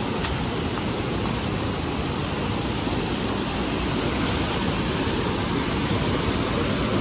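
Fast mountain stream rushing over rocks in a steady wash of white water, growing a little louder toward the end.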